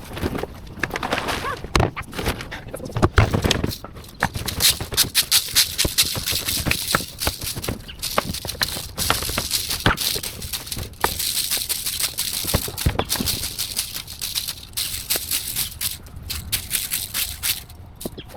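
Cut tree branches and leaves rustling and crackling as they are handled, a dense run of irregular sharp snaps and clicks with no engine running.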